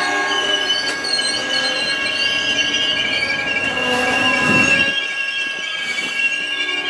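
Amtrak Superliner bilevel passenger cars rolling past, their steel wheels giving off several high, wavering squealing tones over a steady rumble. A louder low rumble swells about four and a half seconds in.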